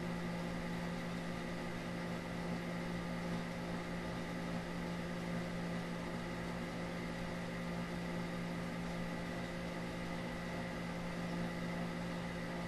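Steady background hum with an even hiss and a low tone that does not change.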